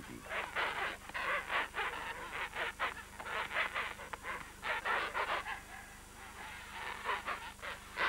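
King penguin colony: many birds calling over one another in a continuous din of short, honking calls, easing slightly a little past the middle.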